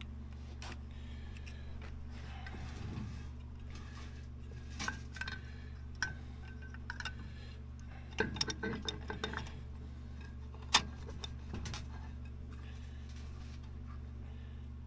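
Snowmobile secondary-clutch parts handled and fitted together: scattered small clicks and clinks as the helix and spring are set onto the metal sheave, a quick run of clinks about eight seconds in and a sharper knock near eleven seconds, over a steady low hum.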